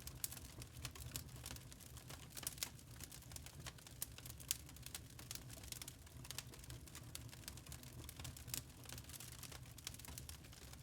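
Log fire crackling in a fireplace: many small irregular pops and snaps of burning wood, with a faint low rumble beneath.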